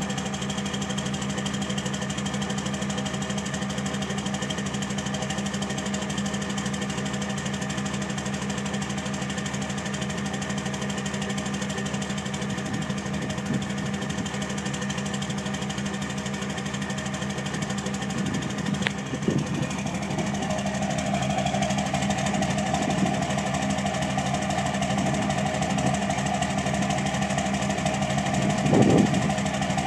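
2006 Cummins diesel engine idling roughly, with a fast, steady clatter. About twenty seconds in a higher steady whine joins it, and there is a brief louder surge near the end.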